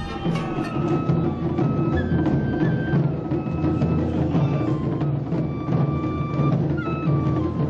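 Taiko drums beating a steady, dense rhythm while a shinobue, a Japanese bamboo transverse flute, plays a melody of long held notes over them.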